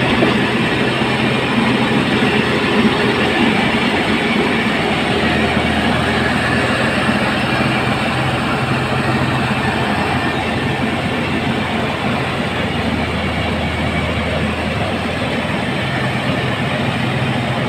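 Truck-mounted mobile rice mill running steadily at full work, its engine and milling machinery making a constant loud mechanical noise with a rattle as palay is milled into rice.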